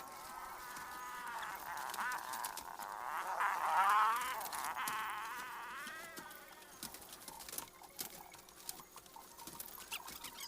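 A crowd of Joper (Ayam Jowo Super) chickens calling over one another in wavering cries, loudest about four seconds in, with light scratching and tapping among them.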